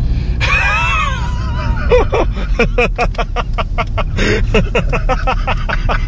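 Hearty laughter inside a moving car's cabin. It starts with a high squealing laugh and breaks into rapid ha-ha bursts, over the steady rumble of the engine and road.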